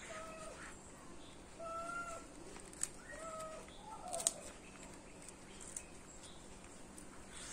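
Four short, level-pitched animal calls about a second apart, over sharp crackles and clicks of a turmeric leaf being folded by hand.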